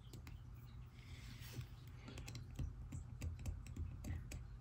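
Faint, irregular small clicks and taps of fingers pressing and handling the metal shields and frame of an opened iPhone 2G.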